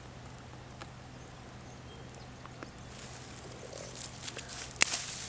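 Dry, ripe wheat stalks and heads rustling and crackling as they are handled, building in the second half with a sharp snap near the end.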